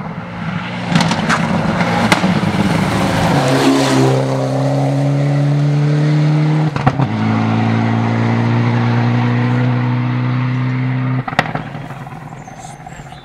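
Rally car at full throttle on a gravel forest stage: it approaches with a few sharp cracks, passes with a drop in engine pitch about three and a half seconds in, shifts gear about seven seconds in, and pulls away until the engine note cuts off sharply about eleven seconds in.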